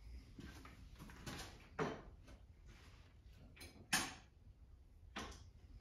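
Irregular clicks and clunks of hand tools and small engine parts being handled during a teardown, the two loudest about two and four seconds in.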